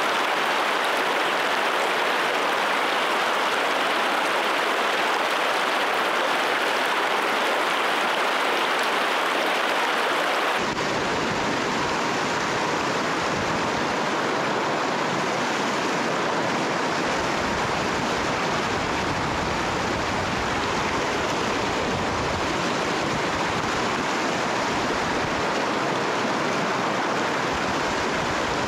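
Rushing river water, a steady hiss of current. About ten seconds in it changes abruptly to a lower, duller rush.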